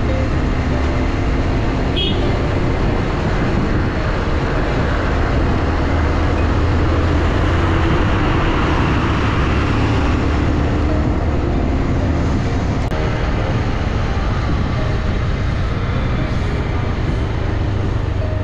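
Motorcycle riding at a steady road speed: a low engine hum under continuous wind and road noise on a camera mounted on the bike.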